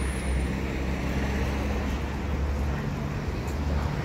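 Town street traffic noise: a motor vehicle's engine running low and steady over a general hum.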